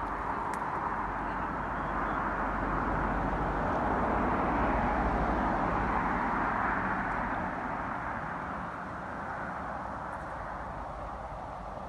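Steady outdoor background noise, a broad hiss that swells a little in the middle and eases off toward the end, with a faint click about half a second in.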